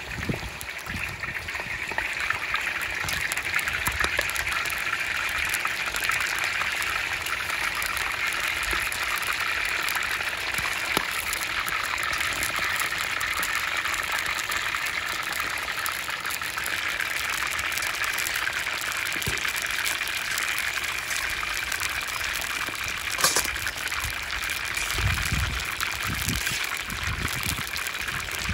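Chicken pieces deep-frying in hot oil in a wok, a steady sizzle full of fine crackles. One sharp tap sounds late on.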